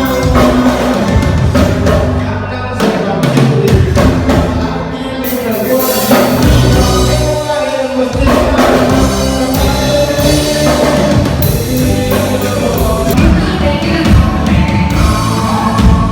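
A band playing a song with a drum kit and singing, loud throughout.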